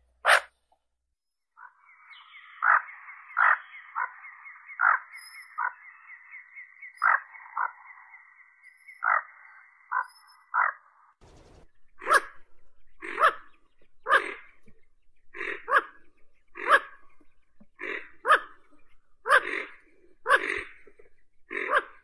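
Common goldeneye calling: a run of short calls over a steady high note, then, from about halfway through, a string of short calls roughly one a second.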